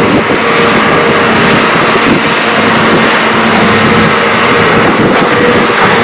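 Heavy diesel machinery running steadily: a Hitachi ZAXIS 350H hydraulic excavator working as it loads dirt into a dump truck.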